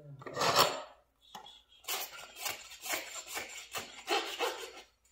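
A hoof rasp scraping across a horse's hoof in quick repeated strokes, about three to four a second, in the second half. It follows a single short, loud noisy burst in the first second.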